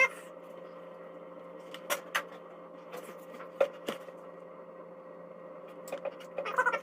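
A steady hum, with a few light knocks and clicks about two seconds in and again around three and a half to four seconds in.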